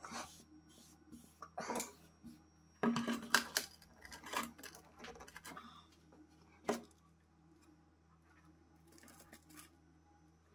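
Handling noises of a motorcycle headlamp housing on a stone countertop: dirt and grit brushed and scraped across the surface, and the housing set down and knocked. The loudest clatter comes about three seconds in, with one sharp knock near seven seconds; the last few seconds are nearly quiet.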